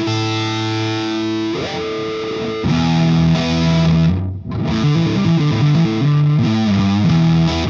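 Electric guitar played through a Frank the Anvil FX Kitsune fuzz pedal, a modified Big Muff with its mid switch to the left: heavy fuzz chords ringing out with long sustain, a brief break about halfway, then more chords.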